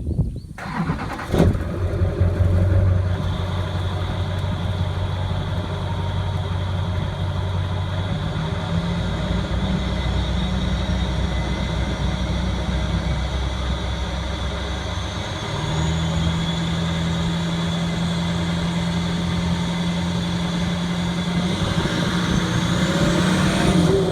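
Duramax V8 turbodiesel running, with a steady high turbo whistle over the engine note. The engine note shifts pitch a couple of times, and near the end a whistle rises and then falls away. There is a sharp knock about a second in.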